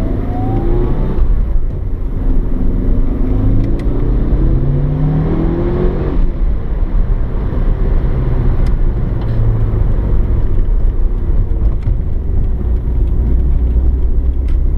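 Mitsubishi Lancer Evolution 6.5's turbocharged four-cylinder engine pulling away from a stop, heard from inside the cabin. Its revs climb twice, and from about six seconds in it runs steadily at a cruise.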